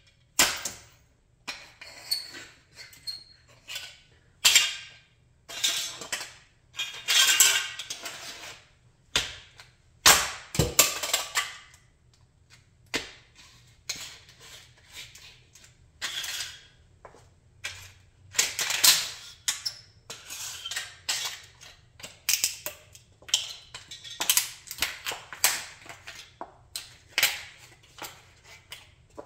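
Scale model of a Chrysler 300B being crushed underfoot by high-heeled sandals on concrete: repeated sharp cracks and crunches of breaking model parts mixed with heel clacks, about one to two a second, a few of them longer grinding crunches.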